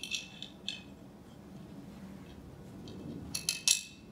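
Metal tool and mounting hardware clinking as they are handled, each clink with a brief ring. There are a couple near the start and a quick cluster of sharper, louder clinks about three and a half seconds in.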